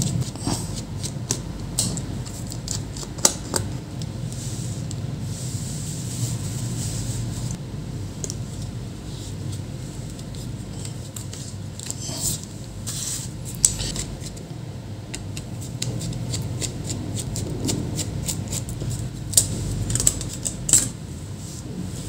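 Scattered small clicks and taps of a screwdriver working on screws and of a laptop's battery and internal parts being handled, over a steady low hum.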